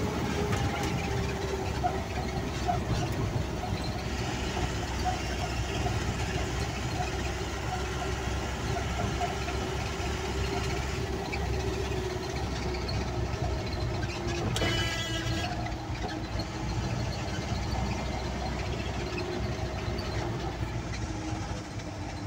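Car engine and tyre noise heard from inside a moving car's cabin, a steady low rumble, with a short high tone about two-thirds of the way through.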